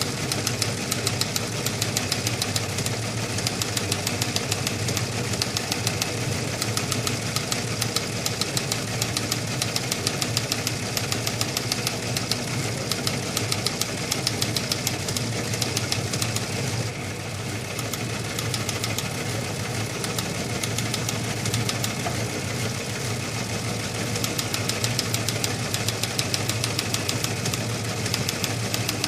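Teletype machine printing: a fast, continuous mechanical clatter of rapid clicks, thinning briefly about seventeen seconds in.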